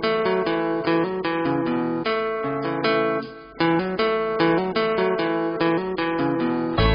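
Instrumental music: a plucked guitar picking out a melody note by note. A low bass comes in right at the end.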